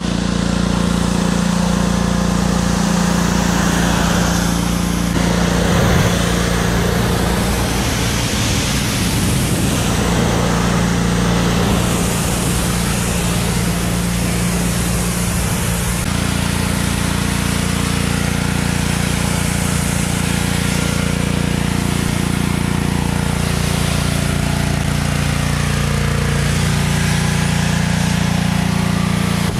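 Pressure washer running steadily, its motor humming under the hiss of the water spray as it rinses a truck.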